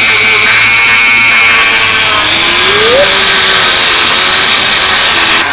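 Dremel rotary tool with a cutoff wheel grinding through a small welded steel stub. It runs at full speed with a loud, steady, harsh grinding hiss that eases slightly just before the end.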